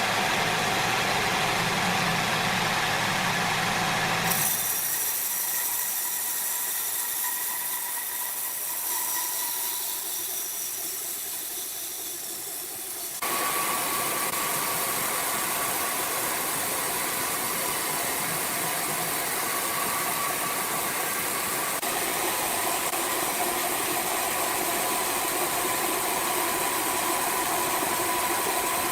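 Engine-driven sawmill machinery running steadily, a continuous mechanical noise with a faint steady hum. The sound changes abruptly twice, about four seconds in and again near the middle, becoming thinner and quieter for a stretch and then fuller again.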